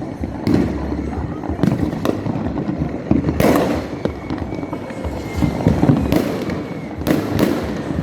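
Fireworks going off: a dense crackle broken by repeated sharp bangs, the biggest and longest burst about three and a half seconds in, with more bangs near the end.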